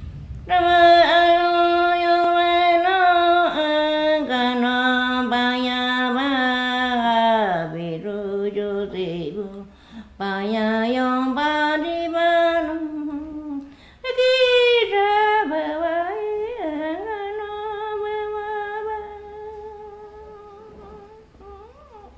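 An elderly woman's solo voice humming a slow, wordless melody in the style of a Shipibo-Konibo healer's icaro chant. It moves in long held notes that glide down in pitch, with brief pauses for breath about ten and fourteen seconds in, and grows softer near the end.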